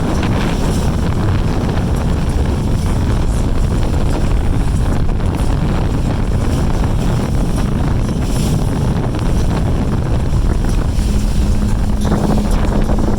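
Motorboat running at speed across the lake, with heavy wind rumbling on the microphone. A steady engine hum comes up about eleven seconds in.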